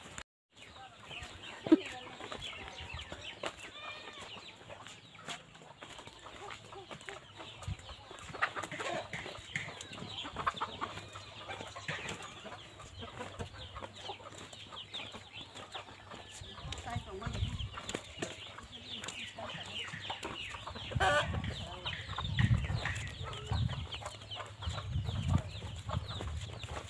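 Domestic chickens clucking and calling, many short chirps and clucks throughout, with a few low thumps in the second half.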